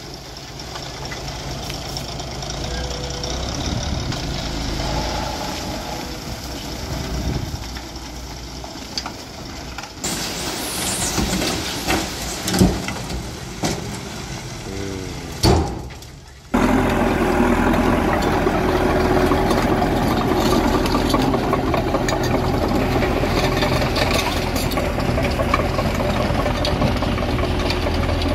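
Heavy dump truck's diesel engine running while its tipper bed is raised and a load of soil slides out, with scattered knocks. About halfway through, a louder, steady diesel engine drone from a small Caterpillar crawler dozer spreading the dirt takes over.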